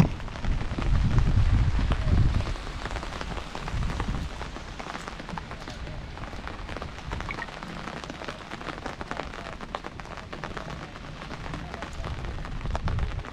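Heavy rain falling on hard surfaces, heard as a steady hiss dense with quick drop ticks. A low rumble sits under it for the first two seconds or so and returns briefly near the end.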